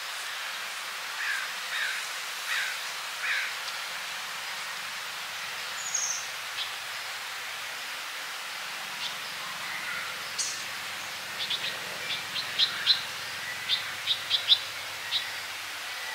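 Small songbirds calling in woodland: four down-slurred call notes about a second in, then a run of short, sharp, high chips in the last few seconds, over a steady background hiss.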